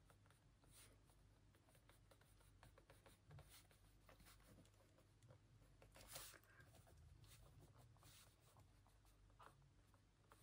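Faint scratching of a pen writing by hand on a notebook page, in short irregular strokes.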